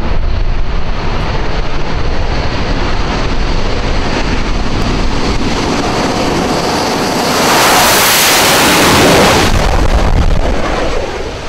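Military jet aircraft engines running on an airbase runway, a loud steady noise. It swells and turns hissier for about two seconds, starting some seven seconds in, as a jet passes closer.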